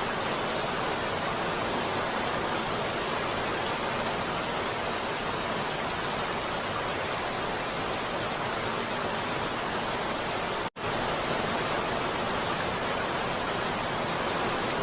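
Heavy rain falling steadily, an even hiss with no distinct drops or thunder. About ten and a half seconds in, the sound cuts out for a split second and comes straight back.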